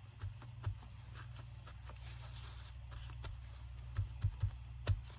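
Paper being handled and glued down on a desk: faint rustles and light taps over a steady low hum, with a few soft knocks near the end.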